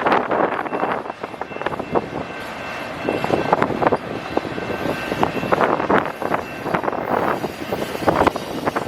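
Autorack freight cars rolling past, with wheels clattering and knocking irregularly over the rail. A faint high steady squeal runs for a few seconds in the middle.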